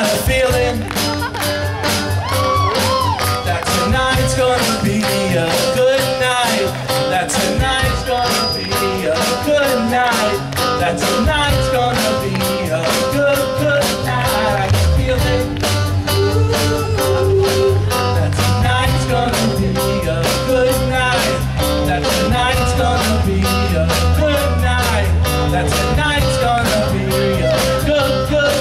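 Live rock band playing an upbeat song: drums, bass, electric and acoustic guitars and keyboard, with a melody line over them. The bass and drums fill out more from about halfway through.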